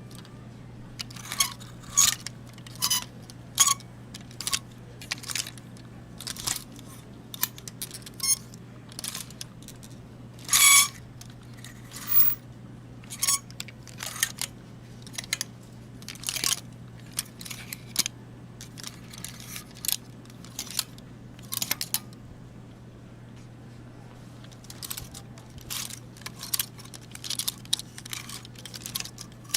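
Metal clothes hangers being pushed along a clothing rack rail one after another, each shove a short metallic scrape and clack, some with a brief high screech. The longest, loudest screech comes about ten seconds in, with a pause of a couple of seconds before the sorting resumes. A steady low hum runs underneath.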